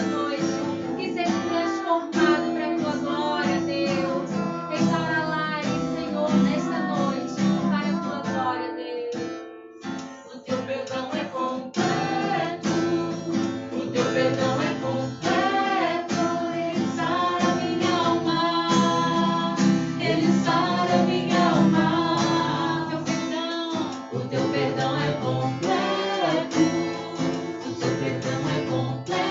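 Worship song with strummed acoustic guitar and a woman singing, with a short pause about ten seconds in.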